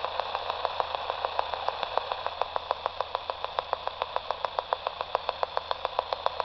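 Radio receiver picking up a very low-power 'penny' oscillator: rapid, evenly spaced clicks, several a second, over radio static hiss. The clicking shows the oscillator is running, powered only by an iron pyrite rock cell with a steel-wire cat's whisker.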